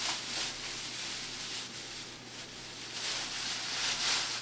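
Thin plastic grocery bag crinkling and rustling in irregular swells as it is pulled over and fitted around a head of hair.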